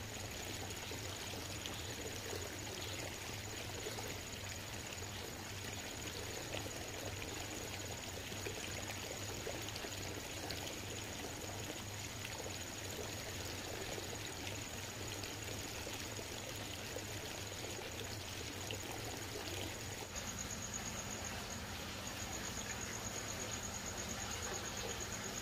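Steady trickle and splash of water in an aerated koi pond, over a low steady hum. After a change about 20 seconds in, a high pulsing insect chirp joins in.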